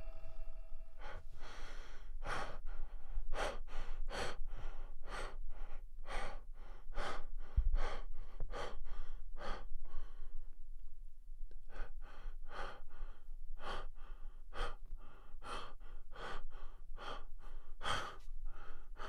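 A person breathing rapidly and heavily, hyperventilating in a panic attack, about two breaths a second, with a pause of about a second and a half midway.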